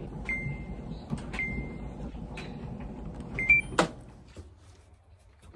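Washing machine control panel beeping as it is set: two short beeps about a second apart, then a quick pair of higher beeps and a sharp clunk a little under four seconds in.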